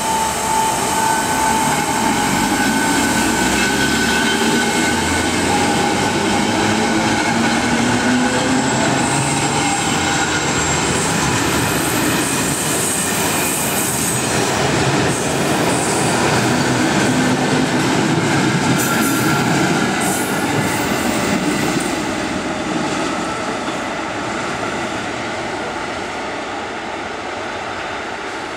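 Two coupled Vagónka Studénka class 460 electric multiple units running past at close range: a steady rolling rumble of wheels on rail, with traction-motor whine that rises in pitch as the train gathers speed. The sound fades from about three-quarters of the way in.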